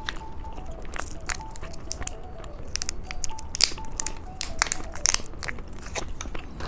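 Close-miked eating of a soft gummy candy: bites and chewing with many sharp, crisp clicks, over faint background music.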